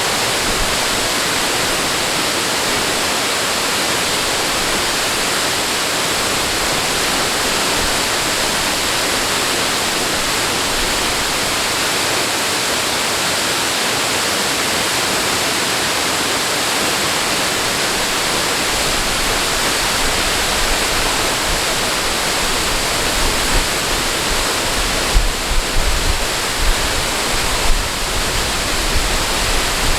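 Steady rush of running water, like a waterfall or fast stream. Low rumbling thumps join in about two-thirds of the way through.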